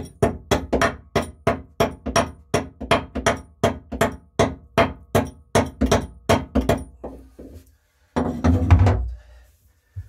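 Small hatchet chopping at the rusty steel frame of a yacht's steering-cable compartment, knocking off flaking rust scale in quick, even blows, about three a second. The blows stop after about seven seconds, and a brief louder rustling noise follows about a second later.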